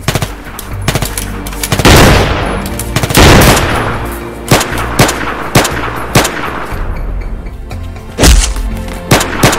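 Movie gunfire sound effects: pistol and rifle shots, single shots spaced about half a second apart and three loud rapid bursts, over a background music bed.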